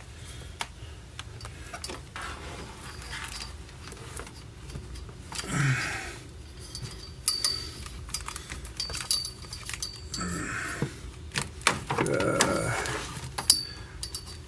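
Clicks, taps and rattles of a plastic cable-management strip being handled and fitted into place, with a few short rubbing or scraping sounds.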